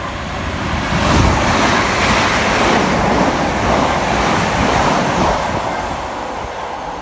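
Two coupled Class 350 electric multiple units passing fast through the station: a rush of wheel and air noise that swells about a second in, holds for about four seconds, then fades as the train recedes.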